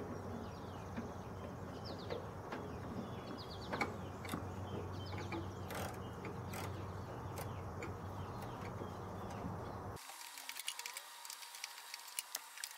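Ratchet wrench clicking in short, irregular runs as bolts are backed out of a lawn tractor's engine.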